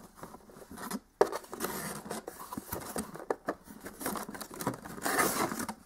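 Cardboard box flaps being lifted and folded back by hand: paperboard scraping and rustling against the box, with a sharp tap about a second in.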